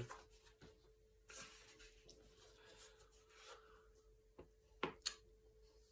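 Near silence: room tone with a faint steady hum, some faint rustling and a few soft clicks near the end.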